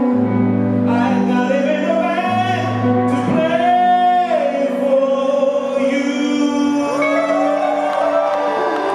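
Live band playing with electric guitars and a male lead vocal. About four seconds in, he holds a long, wavering high note, then slides down.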